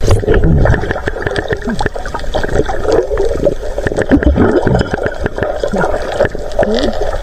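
Muffled underwater sound of moving seawater and bubbles, picked up by a camera below the surface. Many small clicks run through it, with short gurgles that slide in pitch, loudest in the first second.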